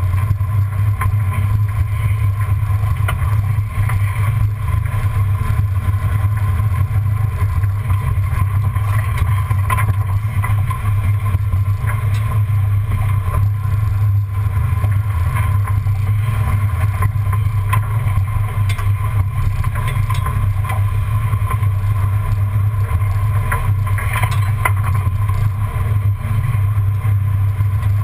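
Steady, muffled low drone of a 1994 Ford Bronco's V8 and drivetrain as the truck crawls along a dirt trail, picked up from under the chassis beside the front suspension. A few light ticks and knocks come through now and then.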